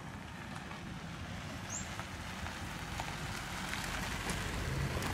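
Steady outdoor background hiss with faint crackles and ticks of dirt and pebbles being scooped by a small child's hand; a low hum comes in near the end.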